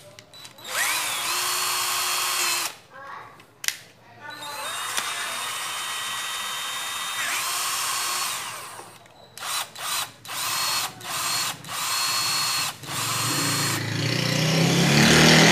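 Makita 12V cordless drill-driver run unloaded on the trigger. It makes two runs of about two and four seconds, its motor whine rising as it spins up and falling as it is let go, then a string of short bursts.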